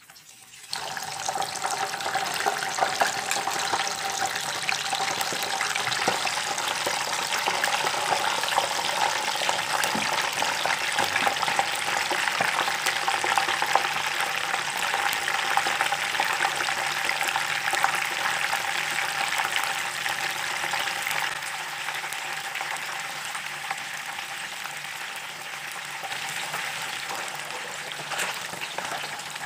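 Whole peeled hard-boiled eggs deep-frying in hot cooking oil, a dense crackling sizzle that starts suddenly about a second in as they go into the oil. It eases a little in the last third.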